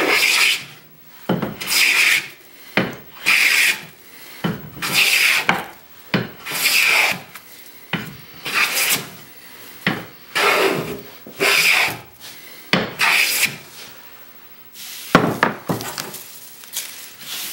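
Steel hand plane with a sharp iron shearing thick shavings off a rough sipo mahogany board, in repeated strokes about a second apart. Each stroke is a rasping hiss. A sharper knock comes near the end.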